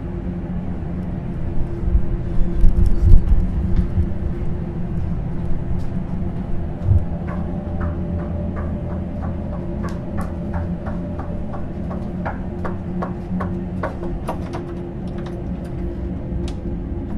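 Footsteps as light, evenly spaced taps on a hard floor, about two a second, over a low, steady droning hum. A few dull thumps come about two to four seconds in.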